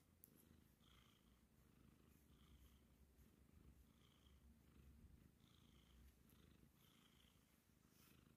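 Black Bombay cat purring faintly, a steady low rumble.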